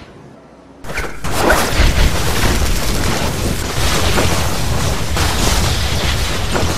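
Electric zap sound effect: after a brief lull, a sudden boom about a second in, then dense, steady electrical crackling.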